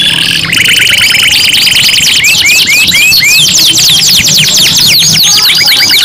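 Domestic canaries singing loudly together, three birds' songs layered at once. A fast rolling trill opens, then from about two seconds in comes a run of upward-curving notes, overlapped by rapid downward-sweeping notes.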